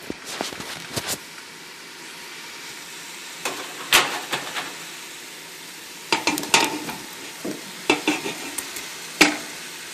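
Sliced potatoes dropping into a stainless steel stockpot, landing with irregular knocks every second or two over a steady sizzle from the hot bacon drippings and broth in the pot.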